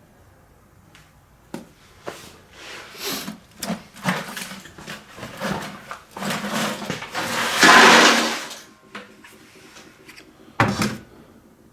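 Scrap laptop parts being handled in and around a bucket: scattered clicks and knocks, building to a longer clattering rush about eight seconds in, then one sharp knock near the end.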